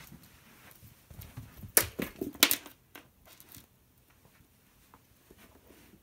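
A kitten scuffling and pouncing on a rug and against a shoe: a short flurry of rustling and sharp knocks from about one to three and a half seconds in, with the two loudest knocks close together.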